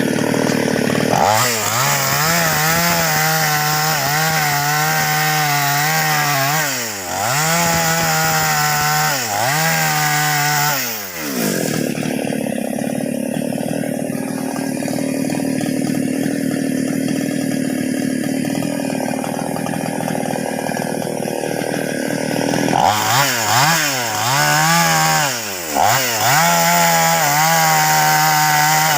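Two-stroke chainsaw running at high revs while cutting into a large sengon trunk during felling, the revs dropping and picking up again several times.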